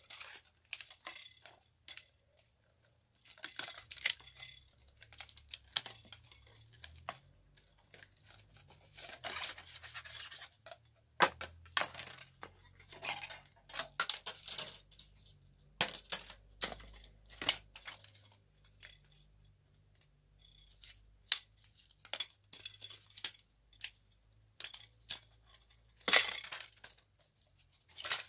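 Tablet LCD screens being taken apart by hand: thin metal frames and screen panels clicking, scraping and clattering, with tearing as adhesive layers are pulled apart. The sounds come in irregular bursts, with a couple of sharper clacks, one about 11 seconds in and one near the end.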